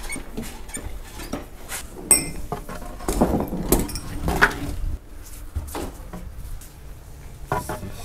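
Metal clanking and knocking from a truck trailer's fittings being handled: scattered knocks, a sharp one about two seconds in and a cluster of clanks between about three and four and a half seconds in.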